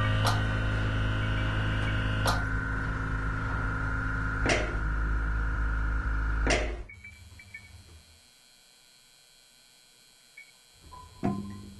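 Sparse electronic soundscape: a steady low hum and held tones, broken about every two seconds by a sharp click with a short ring. About seven seconds in the hum falls away to near silence, and a click near the end brings the hum and tones back.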